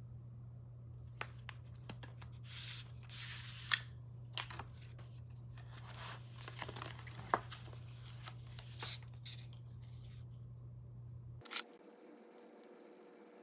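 Cardboard-and-paper packaging of an Apple Watch sport band being opened and handled: scraping and rustling with small sharp taps and clicks, over a low steady hum that cuts off near the end.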